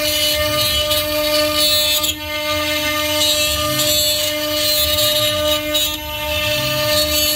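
Electric woodworking power tool running at steady speed on wood, a constant motor whine with brief dips as the load changes.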